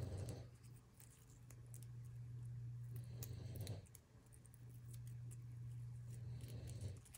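Protective paper film being peeled off laser-cut acrylic mirror letters, faint scratchy crackles. Under it runs a low steady drone that swells about every three seconds.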